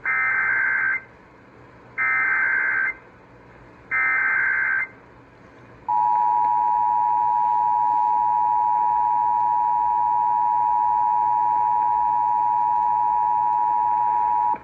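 Emergency Alert System activation: three one-second bursts of screeching SAME header data, two seconds apart, then the EAS two-tone attention signal, a steady two-note tone held for about eight and a half seconds.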